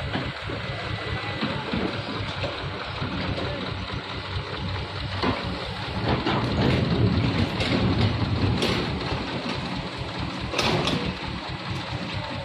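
Diesel engine of heavy earth-moving machinery running steadily, with a few short knocks.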